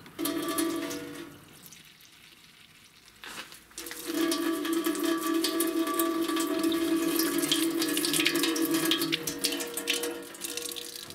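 Water running into a container, with steady ringing tones over the rush of the water. A short pour near the start, then it runs again from about four seconds in until shortly before the end.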